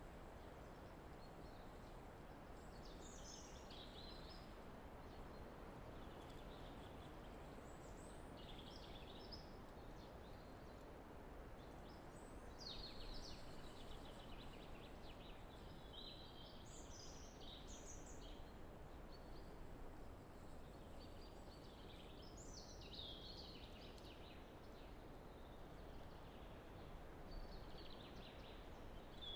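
Common chaffinch singing faintly, repeating its short song phrase every few seconds, over light wind in the trees.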